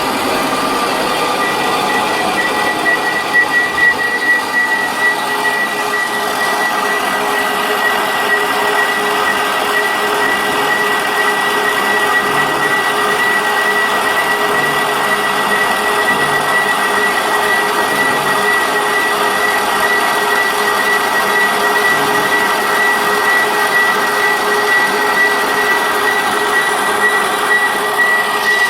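Portable boring machine running off a car battery: its electric motor and gear drive turn the boring bar with a steady high whine over a hum.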